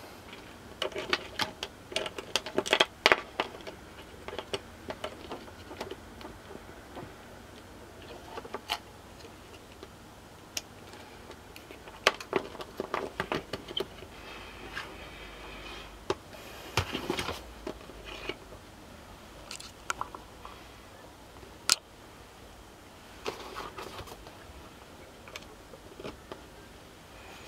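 Handling noise from an oscilloscope kit board, cables and a multimeter on a wooden table: irregular clicks, taps and light scrapes in short clusters while a probe lead and a power plug are connected, with one sharp single click about three-quarters of the way through.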